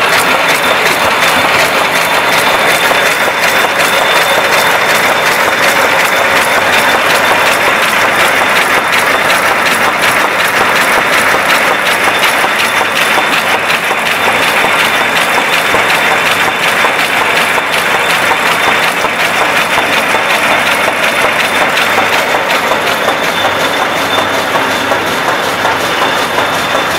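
Automatic window envelope patching machine running: a loud, steady mechanical clatter of rapid strokes, with a thin high whine.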